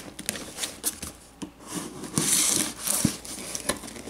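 A serrated combat knife sawing and scraping through the cardboard and tape of a shipping box, with a longer rasping stretch about two seconds in and scattered knocks and rustles of cardboard being handled.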